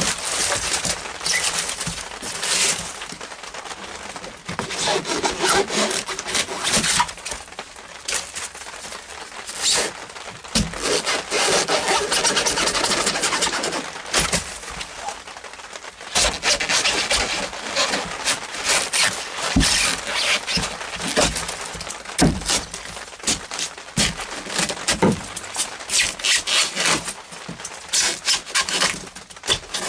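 A hand tool working back and forth in runs of quick, rasping strokes, with short pauses between the runs.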